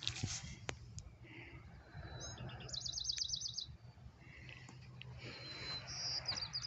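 A small songbird singing: a phrase of rapid, high trilled notes about two and a half seconds in, then another phrase near the end, over a low steady background rumble.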